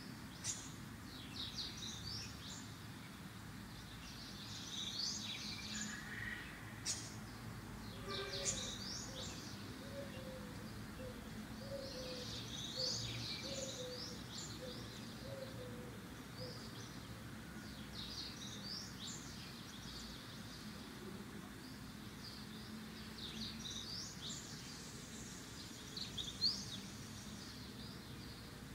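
Small birds chirping and twittering throughout. For several seconds in the middle, a lower note repeats about once a second. A few sharp clicks, the loudest sounds, come from plastic toy parts being handled.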